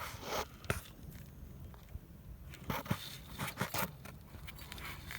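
Scattered short clicks and light scraping of handling noise, busiest about three to four seconds in.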